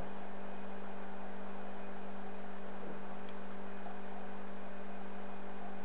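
Steady electrical hum with a faint hiss, unchanging throughout: mains hum in the recording.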